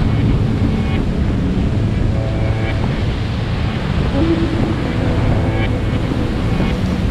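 Waves breaking and washing over a rocky shoreline, with wind buffeting the microphone in a steady low rumble.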